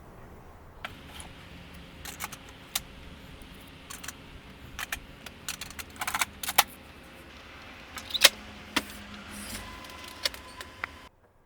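Irregular clicks and knocks of hard plastic printer parts being handled and fitted, over a steady low hum; it all cuts off suddenly near the end.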